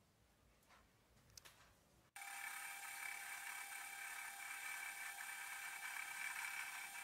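A few faint clicks, then about two seconds in a metal lathe starts sounding abruptly and runs on steadily with a high whine of several fixed tones over a hiss.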